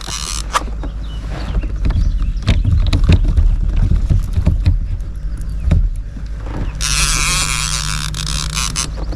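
Knocks and bumps of gear being handled in a kayak, over a steady low rumble. About seven seconds in, a loud steady hiss starts and runs on.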